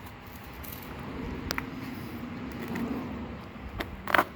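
Handling noise as a small bicycle's dry-rotted rubber tire is worked off its rim by hand: a soft rubbing that swells and fades, a sharp click about a second and a half in, and a quick cluster of clicks near the end.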